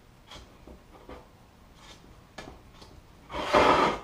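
A plastic card scraping thick epoxy filler across a metal motorcycle side panel in short, faint strokes. About three and a half seconds in, a much louder rush lasts under a second.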